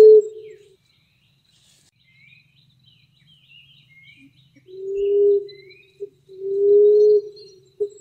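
Emerald dove cooing: low, single-pitched moaning coos of under a second each, one at the start and two more in the second half, with a short note just before the next coo near the end. In the quiet gap between, small birds chirp faintly.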